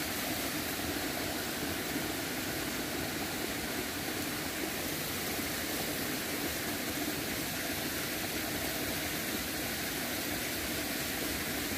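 Steady rush of flowing river water, with no breaks or distinct splashes.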